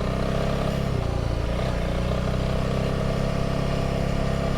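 Single-cylinder motorcycle engine running at steady revs while riding, with a brief change in revs about a second in.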